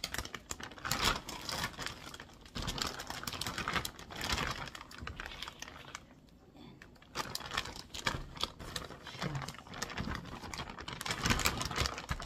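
A plastic courier mailing bag rustling and crinkling as it is handled and opened, with scattered sharp clicks. There is a quieter lull about halfway through.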